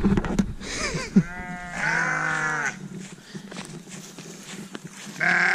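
Sheep bleating: one long bleat about a second in, and another starting near the end.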